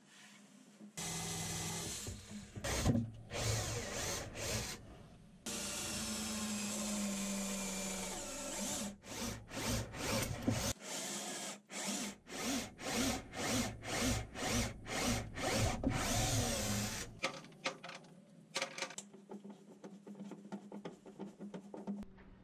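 Cordless drill boring holes into the fibreglass top of a bow thruster tunnel: a couple of steady runs, the second slowing in pitch, then many short trigger bursts, about two a second, before it stops near the end.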